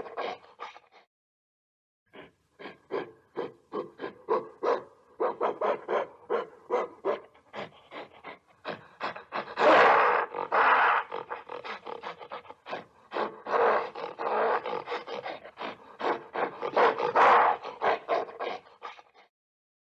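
Gorilla calling in a rapid rhythmic series of short pulsed calls, about three a second. It pauses briefly about a second in and grows louder around the middle and again near the end.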